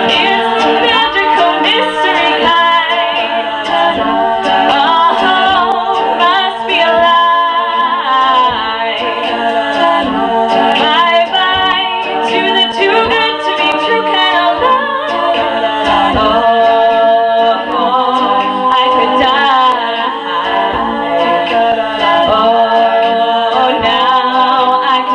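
Women's a cappella group singing in harmony, several voice parts under a lead soloist.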